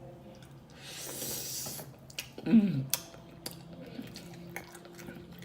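Close-up eating sounds from a seafood boil mukbang: mouth smacking and sharp clicks, a breathy hiss lasting about a second, and a short falling 'mm' hum of enjoyment about two and a half seconds in.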